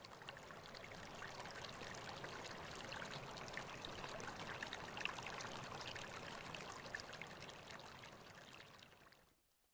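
Shallow stream running over stones, a steady babbling trickle. It swells up at the start and dies away shortly before the end.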